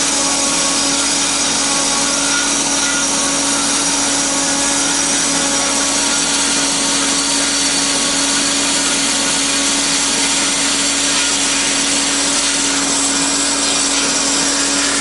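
Cosen C-320NC double-column automatic bandsaw running and cutting steadily through wood during an automatic cycle. A steady hum runs under the blade's noise.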